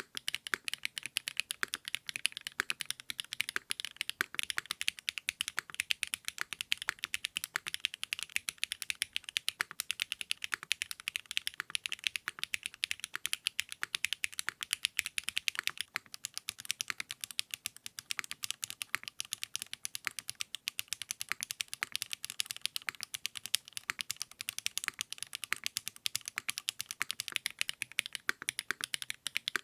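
Continuous typing on a custom mechanical keyboard fitted with 80Retros x HMX KD400 switches: a steady stream of quick, crisp keystroke clicks, many per second.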